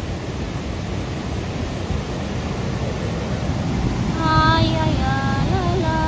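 Steady rush of waterfall and river water. About four seconds in, a person's voice comes in over it, holding a few sung or hummed notes.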